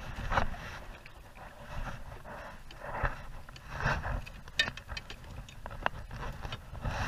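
A caught fish being handled on a plastic sit-on-top kayak: irregular scraping and rustling, with a few sharp clicks and knocks in the second half.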